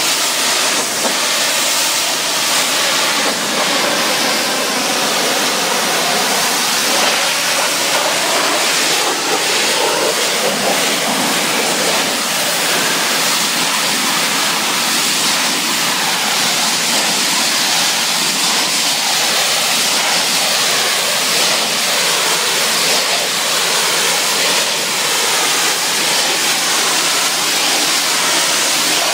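Pressure washer wand blasting a high-pressure water jet against a masonry wall: a steady hiss of spray that does not let up.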